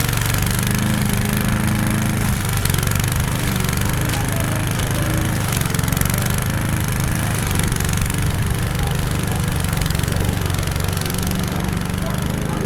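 Lawn mower engine running steadily while mowing tall grass and weeds.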